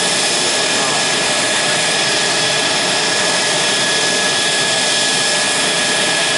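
Mitsubishi F-2 fighter's single F110 turbofan running steadily in a ground engine run-up: an unbroken jet roar with a steady high whine.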